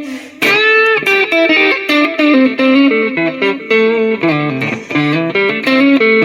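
Strat-style HSS electric guitar played through a Mooer GE150 Pro multi-effects unit, picking a lead solo line of quick single notes with string bends. The tone is clean and boosted, with delay added.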